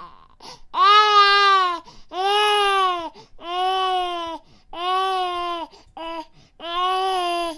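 Baby crying: a run of six wailing cries, most about a second long, with short pauses between them.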